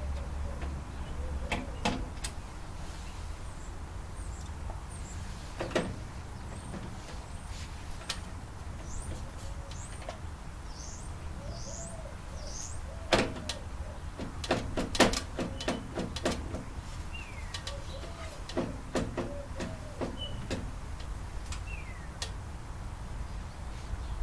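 Scattered sharp clicks and knocks from a Panasonic microwave oven being taken apart, with a quick run of them about halfway through, over a low steady hum.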